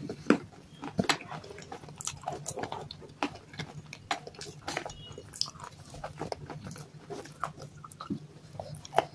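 Baked clay pieces being crunched and chewed close to the microphone, together with sticky clicks from fingers dipping clay in a wet white clay paste. It comes as irregular sharp crackles and clicks, several a second.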